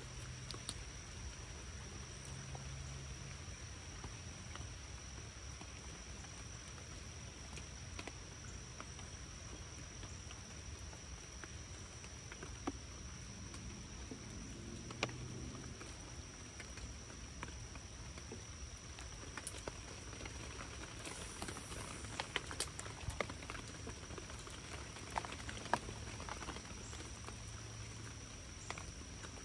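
Steady rain falling, with scattered raindrop ticks that come more often in the second half.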